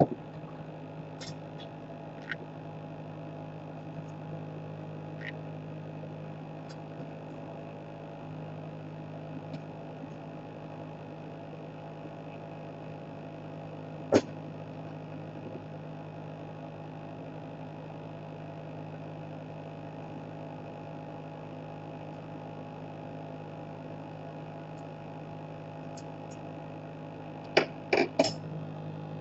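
A steady electrical hum with a few faint ticks and taps. There is one sharp click about halfway through and a quick run of four or five clicks near the end.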